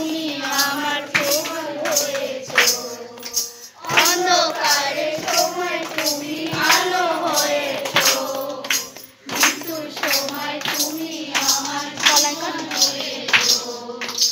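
Congregation singing a Bengali Christian devotional song (bhajan), with a steady percussion beat about twice a second.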